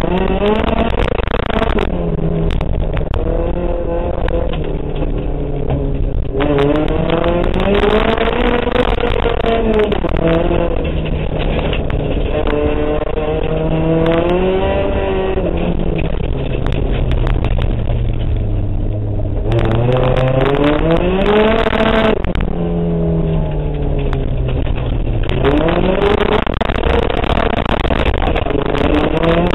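In-cabin sound of a Toyota Corolla Twin Cam rally car's engine driven hard, its revs climbing and then dropping sharply again and again as the car accelerates, changes gear and lifts off. The engine is loudest and harshest during each climb.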